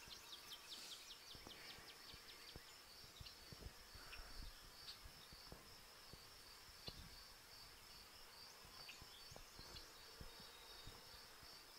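Faint, steady, high-pitched pulsing trill of insects in the woods, with a few soft clicks of wood sticks being handled.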